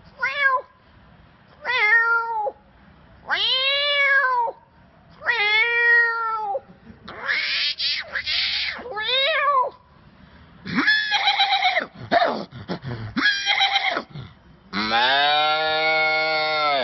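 A man imitating animals with his voice: a string of meow-like cat calls with arching pitch, then a cluster of shorter calls and one long, lower call near the end.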